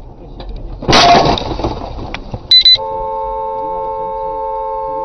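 Something strikes the car's windshield about a second in, a loud hit with the laminated glass cracking and crunching. A short high electronic beep follows, then a steady electronic tone of several pitches sets in and holds.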